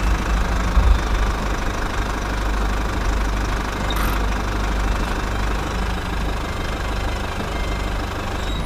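Small engine or motor running steadily with a rough, rattling note, stopping abruptly at the end.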